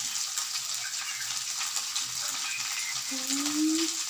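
Beef rendang sizzling and crackling as it fries in oil in a wok. About three seconds in, hot water poured from a kettle into a glass gives a short rising tone as the glass fills.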